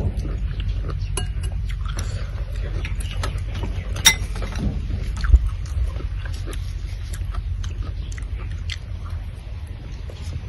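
Eating at a table: metal spoons clinking against glass bowls and plates, with one sharper clink about four seconds in and a dull thump a little after, alongside small chewing and mouth sounds. A steady low rumble runs underneath.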